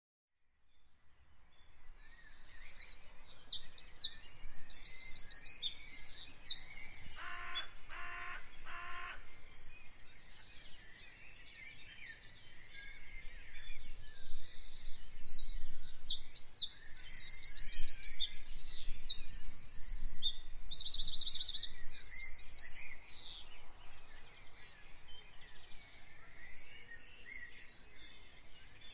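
Several songbirds singing in spring: many high, quick trills and chirps, fading in over the first couple of seconds. About seven seconds in, a lower call sounds three times.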